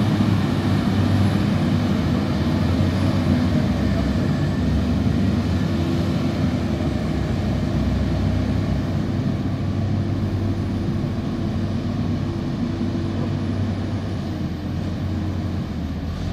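Heavy diesel engines of construction machinery running steadily, a continuous low drone that eases off a little near the end.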